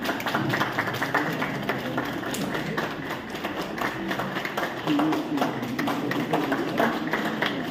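Audience clapping, many hands at once in an uneven patter, with people's voices talking underneath.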